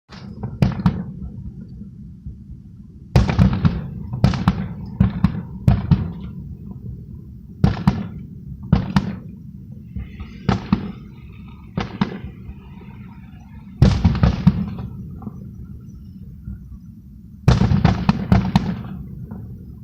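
Aerial fireworks show: sharp bangs in quick groups every few seconds, over a steady low rumble.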